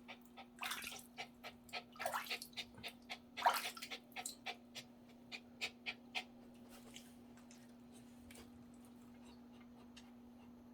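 Water splashing and dripping in a small dog's bath: three louder splashes in the first four seconds among many small drips, which thin out and stop after about six seconds, leaving a steady low hum.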